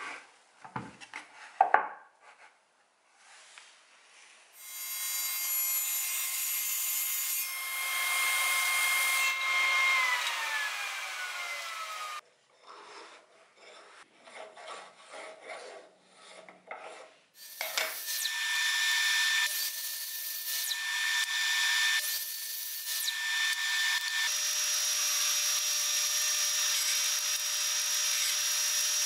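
Workshop machine noise in several short cuts. A power tool runs with a steady whine that glides down as its motor winds down. Then come irregular scraping knocks, and near the end a drill press runs steadily, boring into a small block held in a machine vise.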